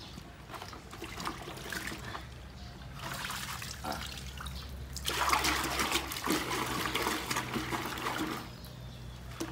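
Water splashing and sloshing in a plastic bucket as a chicken is dunked and washed by hand, with water running off its feathers back into the bucket. The splashing is loudest from about halfway through until near the end.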